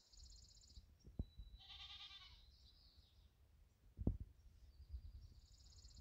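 A short, wavering, bleat-like animal call about two seconds in, between stretches of a high, rapidly pulsing buzzy trill, with a few low thumps.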